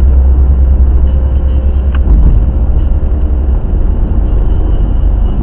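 Steady low rumble of road and engine noise inside a car cruising at expressway speed, as picked up by a dashcam.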